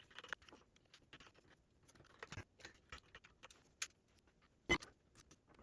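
Scattered faint clicks and ticks of screws and small metal parts being handled and driven in. The sharpest clicks come about two and a half seconds in and again near the end.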